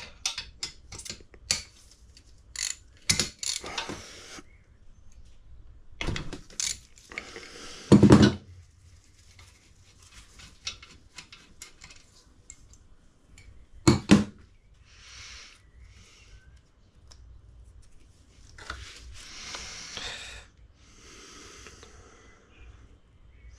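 Hand tools working on an engine block to remove the piston oil squirters: scattered metal clinks and knocks of a wrench and small steel parts, with stretches of ratchet clicking. The two loudest knocks come about 8 and 14 seconds in.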